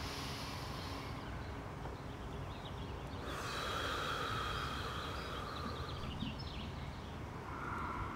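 A man's slow, deep breathing through a steady outdoor hiss, one long breath swelling about three seconds in and lasting a few seconds, another starting near the end.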